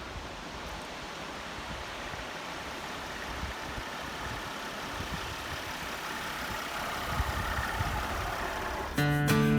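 A steady, noisy rumble and hiss with no distinct tones, like a vehicle running or wind; acoustic guitar music starts suddenly near the end.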